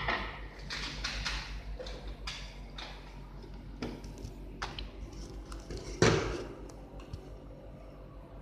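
Scattered clicks and knocks of laptop parts being handled and pressed into place, the loudest a sharp knock about six seconds in, over a steady low hum.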